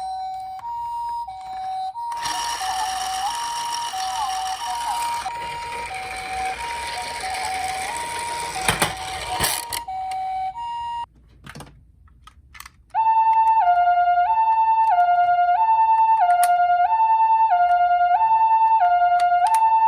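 Toy ambulance's electronic hi-lo 'pee-po' siren, two tones alternating; for most of its first half a noisy rushing rattle runs underneath. It cuts out just over ten seconds in, a few clicks follow, and about two seconds later a louder, cleaner hi-lo siren starts, about one high-low cycle a second.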